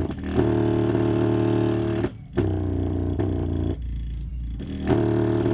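A song with a strong bass line playing through a cheap bare subwoofer driver, driven hard for an excursion test. Held bass notes break off briefly about two seconds in, drop back for a moment around four seconds, and start again.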